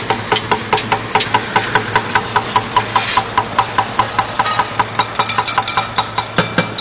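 Rapid, even mechanical clicking, about five or six a second, over a steady engine hum.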